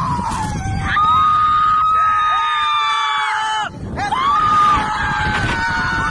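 A woman and two men screaming together on a giant swing. The screams are long and held, with a short break a little past halfway before they start up again.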